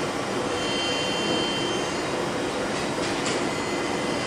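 Steady machine-shop background noise: a continuous mechanical hum and hiss with a faint high whine. A couple of faint brief scuffs come about three seconds in.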